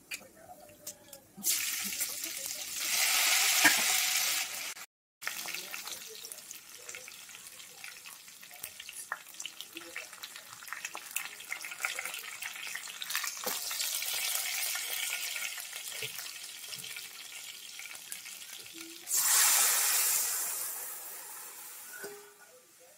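Tadka sizzling in a steel pan: mustard and fenugreek seeds, coriander seeds, curry leaves and green chillies hit the hot fat with a sudden loud hiss about 1.5 s in. A lighter crackling with many small pops of seeds follows. About 19 s in a second loud hiss rises and slowly fades as the kadhi batter is poured onto the hot tempering.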